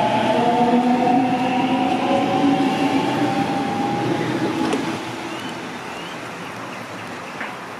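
Sydney Trains double-deck electric train moving past the platform, its traction motors whining in a slowly rising pitch as it picks up speed. The whine drops away about five seconds in, leaving quieter station background.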